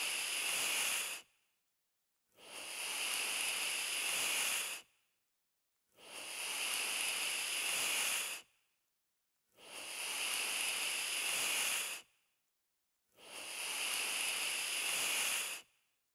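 Snake hissing in long, repeated breaths: one hiss ends about a second in, then four more follow, each lasting about two and a half seconds and swelling in before cutting off, with about a second of silence between them.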